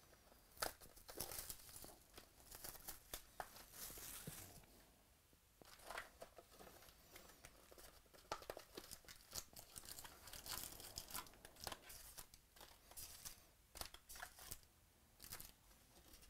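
Faint, irregular rustling, crinkling and light taps of cardboard and paper as a sealed box of trading card packs is opened and its paper insert lifted off the packs.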